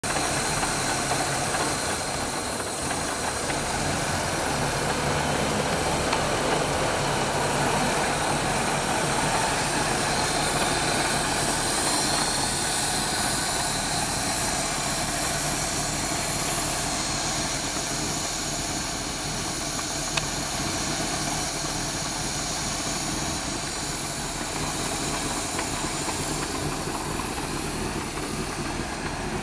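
1973 Rover P6 3500S's 3.5-litre Rover V8 idling steadily.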